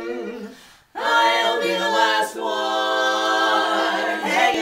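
Women's barbershop quartet singing a cappella in four-part close harmony: a held chord fades away, and after a short break about a second in, the voices come back in together on a loud sustained chord.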